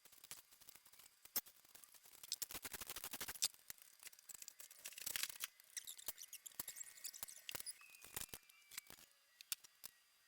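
Hand tools and metal engine parts clicking and clattering during an engine teardown, with a fast run of clicks about two seconds in and single knocks near the end.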